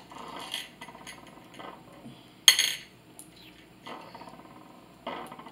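Small clinks of jelly beans and plates on a glass tabletop as beans are picked over by hand, with one sharp clink about two and a half seconds in.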